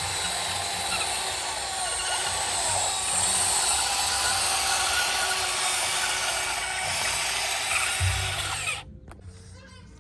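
Small electric motors and gearboxes of radio-controlled construction models running, a steady mechanical whirring and ratcheting with a faint whine that shifts in pitch. It cuts off abruptly about nine seconds in.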